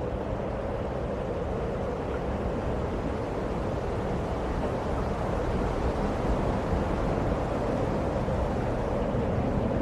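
A steady rushing roar with a low rumble underneath, growing a little louder about six seconds in.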